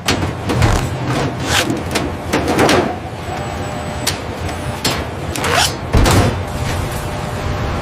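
Cargo doors being shut after loading: a run of clanks and knocks over a steady low hum, the loudest about a second in and again near six seconds.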